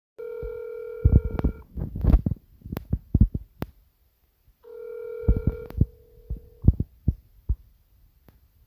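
Telephone ringing tone on a phone line, sounding twice for about a second and a half each time, at the start of a recorded call. A string of loud, short low thumps and clicks runs through and between the tones.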